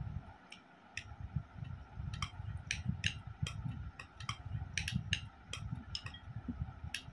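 A plastic spoon scraping and knocking against a stainless steel bowl as food is pushed out onto a plate: a dozen or so irregular sharp clicks, thickest in the middle, over a low rumble.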